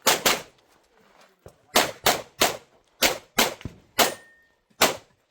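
Rapid pistol shots, about ten, fired mostly in quick pairs with short pauses between: a competitor shooting through a USPSA stage.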